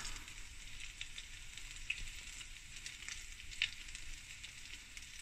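Butter and olive oil sizzling in a stainless steel pan with ground spices sitting in the hot fat, a steady fizz with a few small pops.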